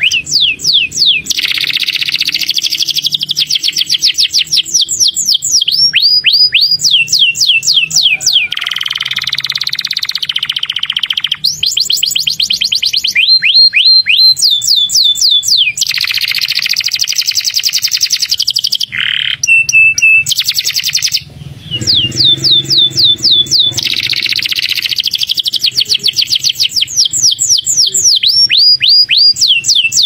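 Domestic canary singing a long, nearly unbroken song: fast trills of repeated downward-sweeping whistled notes, alternating with buzzy rolls, with only a brief break about two-thirds of the way through.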